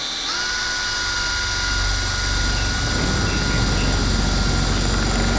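Air horn sounding one long, loud, steady blast of several tones at once. Its pitch slides up briefly as it comes on, and a low rumble runs beneath it.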